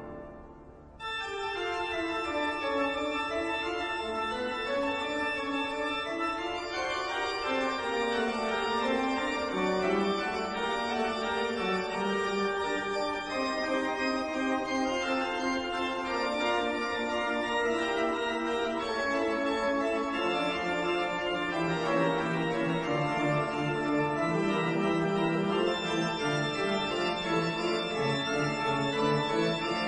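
Slow organ music in sustained, slowly changing chords. It comes in about a second in and continues at an even level.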